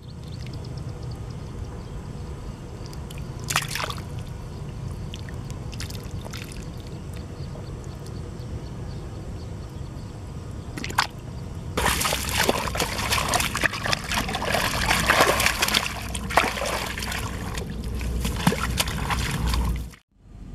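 A snakehead fish splashing in a shallow pool of muddy water at the bottom of a pit. There are a couple of single splashes at first, then hard, continuous thrashing for the last eight seconds or so.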